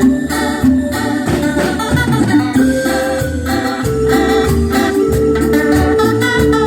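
Cumbia band playing live: sustained chords held over a repeating bass line and percussion beat.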